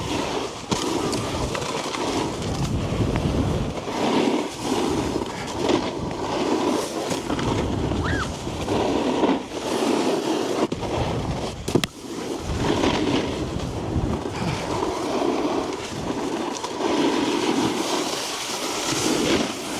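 Snowboard sliding and carving down an icy slope, the edge scraping through a series of turns that swell and fade every second or so. A single sharp knock about twelve seconds in.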